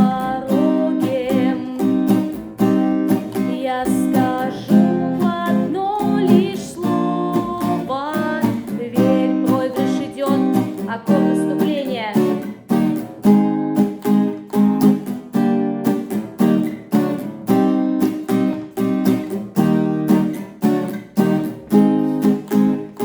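Acoustic guitar strummed through the minor-key chord changes of a song, with a woman singing along over it for roughly the first half.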